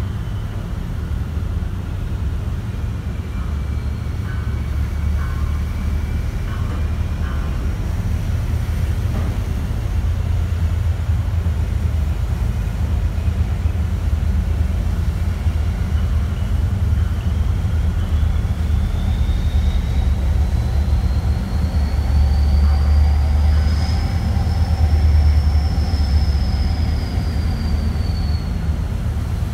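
High-speed catamaran ferry's engines running hard as it pulls away from the berth: a heavy steady rumble that swells louder in the second half, with a thin high whine that climbs and then falls back in pitch.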